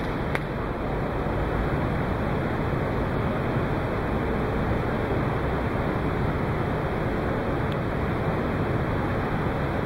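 Steady rushing background noise of an indoor hall, even throughout, with one faint click just after the start.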